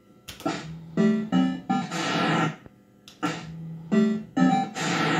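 Bell-Fruit Cash Explosion fruit machine's electronic game sounds: two matching sequences, each of a click, three short rising beeps and a falling whooshing sweep, the second starting about three seconds in.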